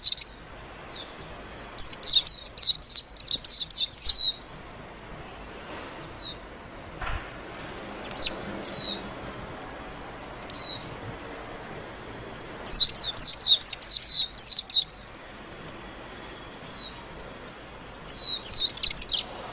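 White-eye (vành khuyên) singing: quick runs of high, rapid downward-sweeping chirps, three longer runs with single chirps scattered between them.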